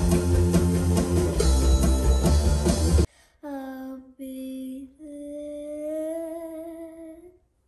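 Rock music with electric bass guitar and drums, cutting off suddenly about three seconds in. Then a girl's voice hums three held notes, the last one long and rising slightly at its end.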